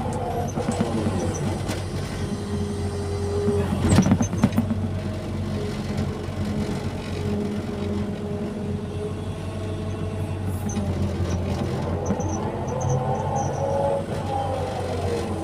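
Excavator's diesel engine running steadily under load, with whining tones that rise and fall as it works and a loud clunk about four seconds in.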